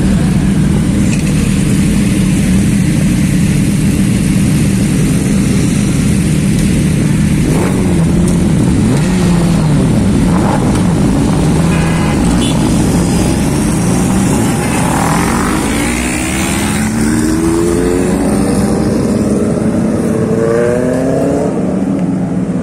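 A group of sport motorcycles running together with a steady, loud engine rumble, one or two engines blipped about a third of the way in. In the second half several engines rev up in rising sweeps, as when bikes pull away.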